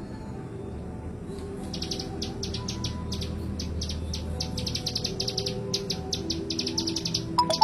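Ciblek gunung, a prinia, singing: rapid runs of high, short repeated notes starting about a second in, coming in quick trilled bursts. A steady low hum lies underneath, and a sharper note stands out near the end.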